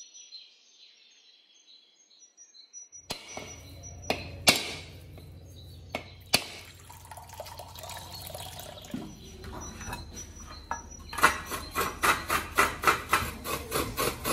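Faint birds chirping, then a coconut struck several times with the back of a heavy kitchen knife to crack it open, its water trickling into a steel tumbler. After that comes fast, rhythmic scraping as the coconut flesh is grated.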